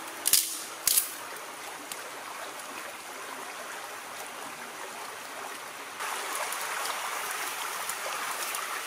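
Shallow stream running over rocks, a steady watery hiss, with two sharp snaps of dry twigs about a second apart near the start. About six seconds in, the hiss gets louder and brighter as a small twig fire burns close by.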